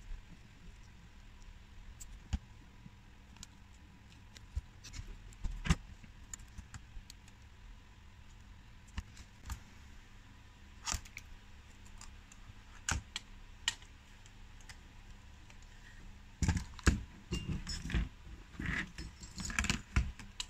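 Small clicks and taps of hands handling a tablet's screen, flex cables and housing during disassembly, scattered and sparse at first, then a denser run of knocks and rattles in the last few seconds as the opened tablet is moved about.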